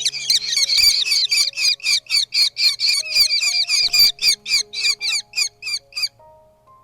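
Falcon calling in a rapid series of harsh, squawking notes, about four or five a second, stopping abruptly about six seconds in, over soft background music.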